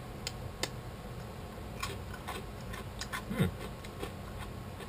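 Small crunchy chocolate-filled biscuits being broken and chewed, heard as scattered crisp crackles and clicks with the loudest crunch about three and a half seconds in.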